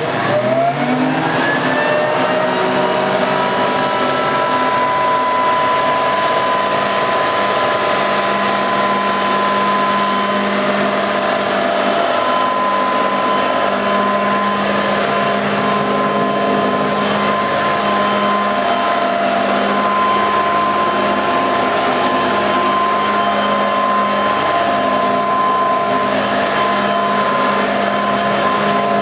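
Nilco 271 commercial upright vacuum cleaner, its agitator fitted with four extra brushes, switched on: the motor whines up to speed over about a second and a half, then runs steadily with a high tone.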